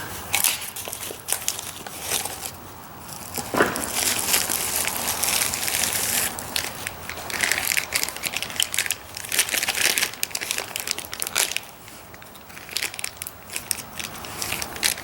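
Plastic packaging crinkling and crackling in bursts as a package is handled and opened.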